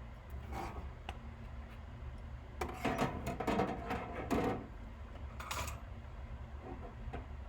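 Small tools and parts being handled on a workbench: a cluster of clicks and rattles from about two and a half to four and a half seconds in, and another brief one a second later, over a steady low hum.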